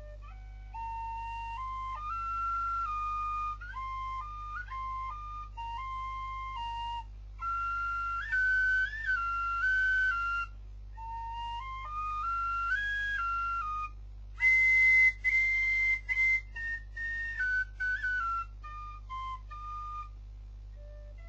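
Small end-blown flute played solo: an improvised tune in the style of a traditional Chinese march, in short phrases of held notes that step up and down, with brief pauses between them. About two-thirds of the way through, a few loud, breathy high notes stand out. A steady low hum lies underneath.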